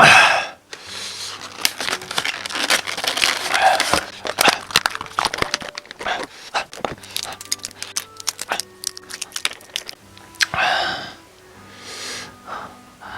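Close-miked crinkling and tearing of food packaging, with many small sharp clicks and one louder rustle near the end.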